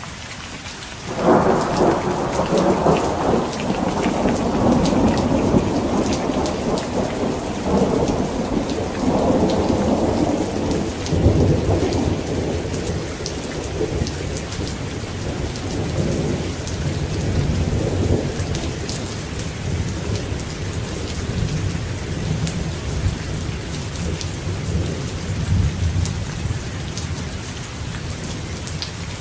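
Rain falling steadily through a thunderstorm. About a second in a clap of thunder breaks in, the loudest sound here, and its rumble rolls on for about ten seconds before settling into a low grumble under the rain.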